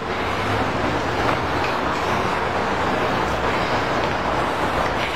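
Steady street traffic noise, with engines and a low rumble, starting abruptly and holding at an even level.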